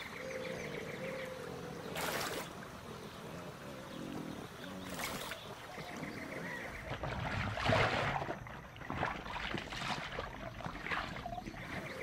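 Water sloshing and splashing as Australian pelicans swim and dip their bills into the water to feed, with sharper splashes about two, five and eight seconds in, the one near eight seconds the loudest.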